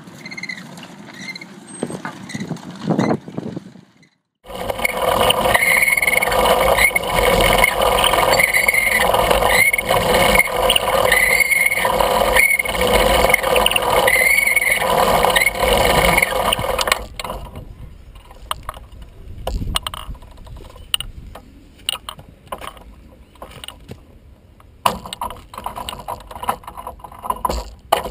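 Railway velocipede running along steel rails, heard close up from the machine itself: a loud rattle of iron wheels and gear drive, with a short squeak repeating about once a second as it is pumped along. Partway through the rattle falls away to quieter scattered clicks and knocks, then picks up again near the end.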